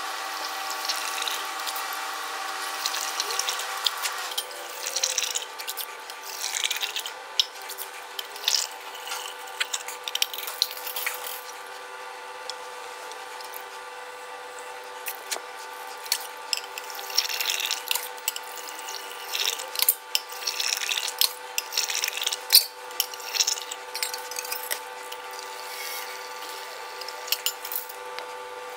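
Spirit poured from a jug through a funnel into a small oak barrel for about four seconds. After that come scattered clinks, scrapes and knocks as glass jars and a stainless steel pot are handled, over a steady machine hum.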